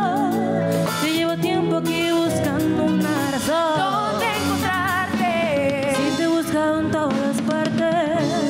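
Live band music with women singing the melody, their voices wavering in pitch on held notes, over keyboard, bass guitar and percussion, in a pambiche, rock and tropical fusion style.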